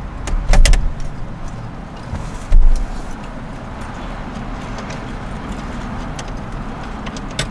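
Ratchet wrench clicking a few times on a 10 mm bolt under a car dashboard, with two loud dull knocks. After that come fainter clicks of hand work against a steady low background noise.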